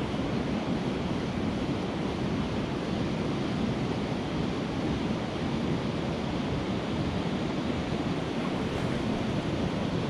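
Steady rush of a rocky mountain stream flowing over stones.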